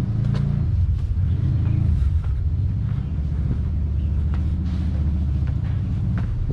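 A loud, steady low rumble, with faint taps of footsteps climbing stone stairs.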